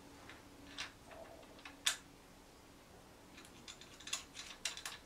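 Light clicks and taps of a motorcycle phone-mount extender arm and Allen key being handled and fitted: a sharper click about two seconds in, then a quick run of small clicks near the end.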